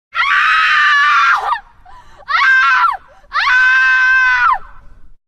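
A person screaming three times, high-pitched: a long scream, a short one, then another long one, each falling off at the end. A horror sound effect.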